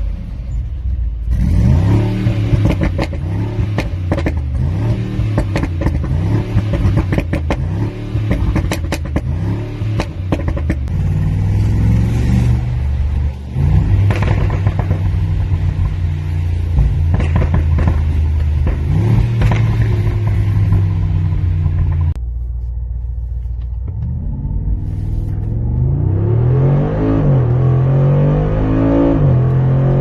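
Tuned 2020 Mercedes-AMG G63's twin-turbo 4.0-litre V8 revving and accelerating, its exhaust crackling and popping, with rapid sharp pops through roughly the first dozen seconds. The engine pitch rises and falls again near the end.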